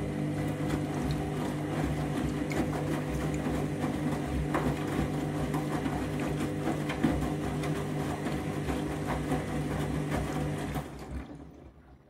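Candy front-loading washing machine in its rinse, the drum tumbling an absorbent load: a steady hum with water sloshing and splashing inside the drum. The sound dies away about eleven seconds in.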